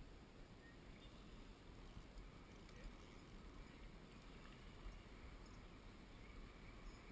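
Near silence: faint outdoor background with a low, steady rumble.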